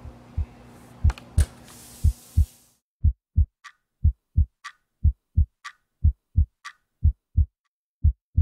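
Heartbeat sound effect: pairs of low thumps about once a second, the two beats of each pair close together. From about three seconds in, a faint higher tick falls between the pairs, after a steady background hum fades out.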